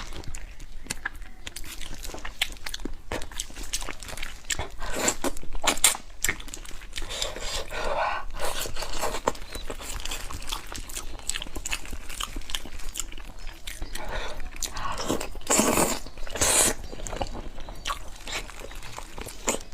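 A person chewing and biting soft braised pork close to the microphone: many short clicks of eating, with a few louder, longer noisy stretches about eight seconds in and again around fifteen to seventeen seconds in.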